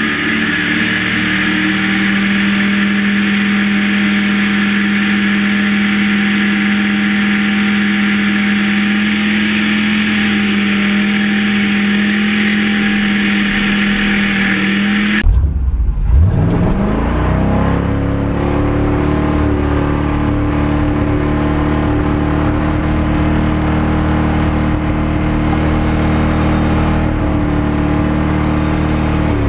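Chevy 305 small-block V8 held at high revs during a burnout, a steady high engine note. About halfway it cuts off abruptly, then revs back up and holds at a higher pitch.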